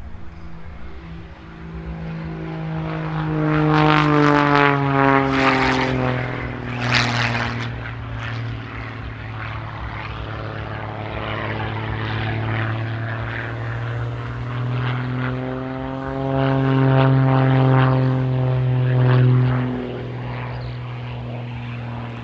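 MXS aerobatic plane's Lycoming AEIO-540 six-cylinder boxer engine and propeller flying past. The engine note swells and falls in pitch about four seconds in, then grows loud again near the end before dropping away.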